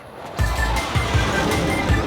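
Loud action-style background music with a heavy, pulsing bass and repeated short high notes. It comes in about half a second in.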